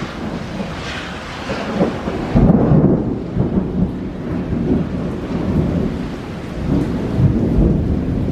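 Thunder rolling over heavy steady rain in a monsoon downpour, the loudest rumble about two and a half seconds in, then rolling on with smaller swells.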